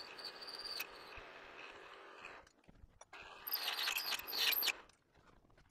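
Milling machine spindle running with a 29/64 in. twist drill cutting into a steel vise jaw, drilling the tap-drill hole for a 1/2-20 thread. The cutting gets louder and harsher about three and a half seconds in and stops about a second later.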